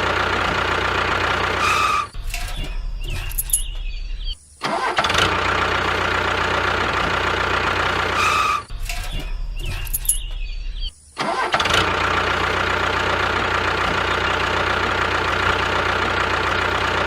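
A small engine running steadily. Twice it gives way to a few seconds of a quieter, lower hum and a brief dropout before coming back.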